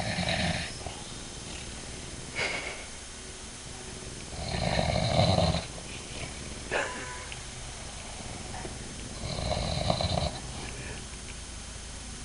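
A man snoring in his sleep: three snores about five seconds apart, each lasting about a second, with a short, weaker sound between each pair.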